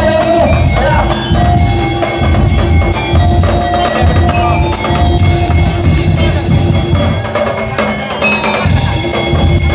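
Daul percussion ensemble playing: dense, loud drum and wood-block beats under a sustained melody line. The low drums drop out briefly about eight seconds in.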